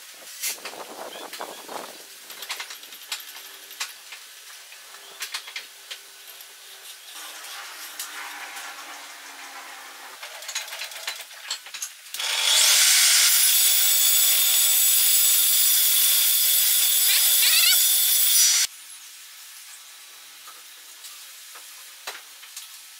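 Light clicks and knocks of a stop block and square being handled on a wooden crosscut sled. About halfway through, a table saw starts and runs loudly for about six seconds with a steady high whine, then cuts off suddenly.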